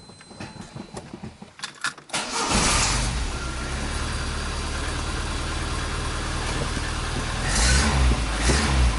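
VAZ-21099's four-cylinder engine started about two seconds in, catching quickly and settling into a steady idle, with two brief louder swells near the end. No alternator belt whistle is heard, now that the loosely mounted, slipping alternator has been tightened.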